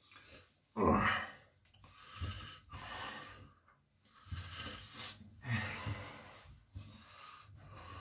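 A man drying his face with a towel: a loud voiced exhale about a second in, then several rough breaths and cloth-rubbing strokes of the towel against the face, each about a second long.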